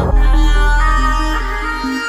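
Background music: an instrumental electronic track with sustained synth notes over a heavy bass line.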